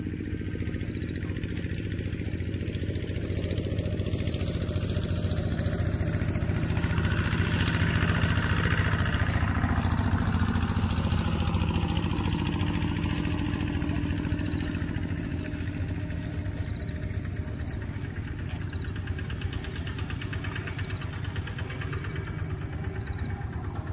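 Motor vehicle engine running steadily as it passes by, growing louder to a peak about nine seconds in and then slowly fading.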